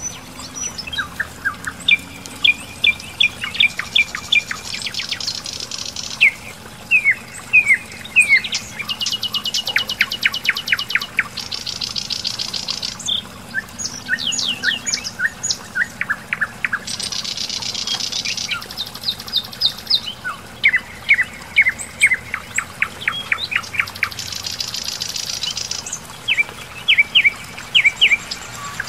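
Songbirds singing: repeated phrases of quick chirps alternating with high buzzy trills, a new phrase every second or two, sometimes overlapping.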